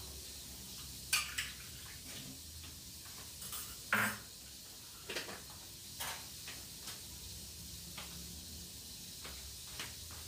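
Scattered clinks and knocks of dishes and utensils being handled at a kitchen counter, the sharpest about a second in and about four seconds in, over a faint steady low hum.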